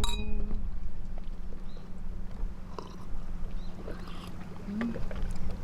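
A steady low motor drone with a few faint clicks and taps.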